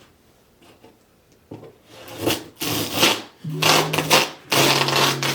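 Irregular rubbing and scraping strokes, beginning about a second and a half in, with steady low tones held under the later ones.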